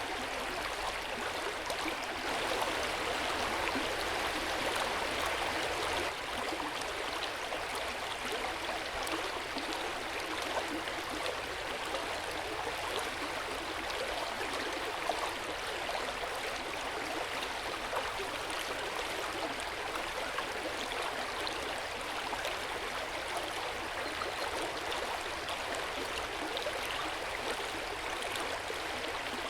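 Hot-spring water flowing steadily into an outdoor bath, a continuous splashing and gurgling trickle.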